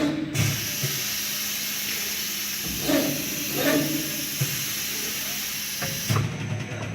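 CNC profile machining centre working an aluminium curtain-wall profile, giving a steady, hissing machining noise that starts just after the beginning and cuts off about six seconds in.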